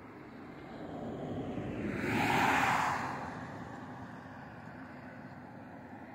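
A minibus driving past on a tarmac road: the engine and tyre noise swells, peaks about two and a half seconds in, then fades as it drives away.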